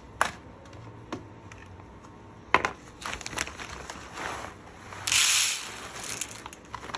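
Clear plastic bag of green coffee beans crinkling as it is handled, with a few light clicks. About five seconds in, the beans pour out into a paper tray in a brief rushing rattle, the loudest sound.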